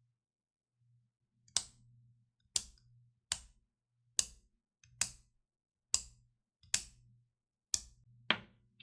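3D-printed clicking fidget button of silk PLA and PETG being pressed, giving about nine sharp plastic clicks roughly a second apart, the last two close together near the end.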